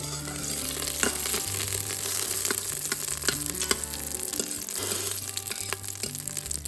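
Whole peppercorns and spices frying in hot ghee in an Instant Pot: a steady sizzle scattered with sharp pops and crackles as the peppercorns jump in the fat.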